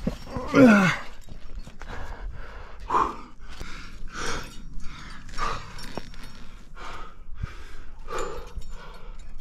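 A person breathing hard in quick, noisy breaths, with a loud low grunt that falls in pitch about half a second in: the sound of a climber straining with effort.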